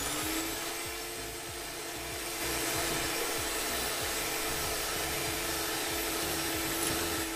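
Kent 150 W electric hand mixer running steadily with its beaters whipping fresh cream in a glass bowl; the motor comes up to speed at the start, and the sound grows a little louder about two and a half seconds in.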